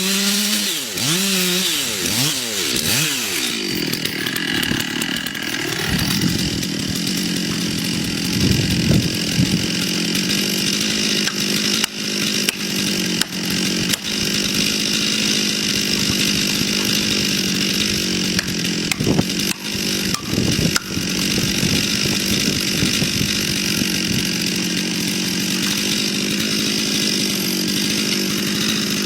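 Chainsaw running: in the first few seconds its pitch drops and climbs again, then it holds a high, steady speed, likely cutting through wood, with scattered short clicks.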